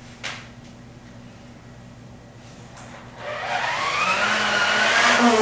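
Handheld hair dryer switched on about three seconds in, a rush of air with a motor whine that rises in pitch as it spins up. It is blowing out flour packed inside it.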